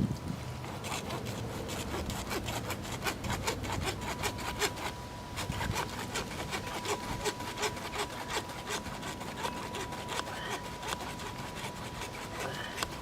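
Small handsaw cutting through a PVC water main pipe: steady, rapid back-and-forth rasping strokes that keep going without a break.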